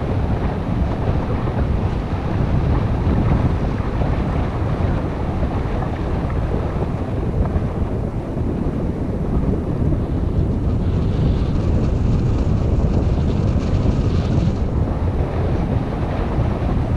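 Wind buffeting the microphone of a camera on a moving bicycle: a steady low rumble. A few seconds past the middle, a fainter high hiss is added for about three seconds.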